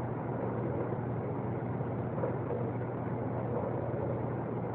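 Steady mechanical hum with an even hiss, like a motor running at a constant speed.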